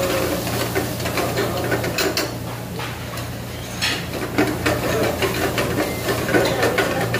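A steel ladle stirring and scraping chopped capsicum and onion around a frying pan, with light sizzling and two sharper knocks of the ladle against the pan, about two and four seconds in. A steady low hum runs underneath.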